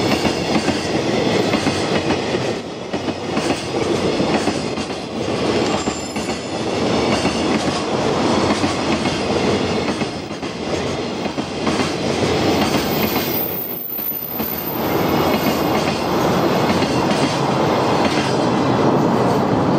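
Container freight train of Koki flat wagons passing close by at speed: a steady, loud rumble and clatter of steel wheels on the rails, with a brief lull about two-thirds of the way through.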